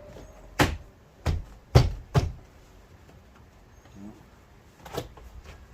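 Four sharp clacks in quick succession, then one fainter one near the end, from the rear door handle and latch of a 2004 Cadillac Escalade being worked to check that the newly fitted handle seats and operates.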